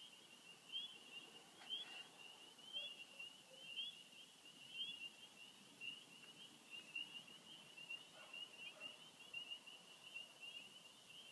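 Faint, high-pitched repeated chirping from an unidentified animal, a chirp every half second or so at first, then running together into a near-continuous trill about halfway through.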